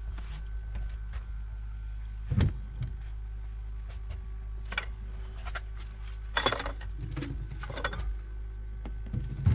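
Scattered knocks and rattles of fishing gear and a landing net against a metal boat, the loudest about two and a half and six and a half seconds in, over a steady low hum.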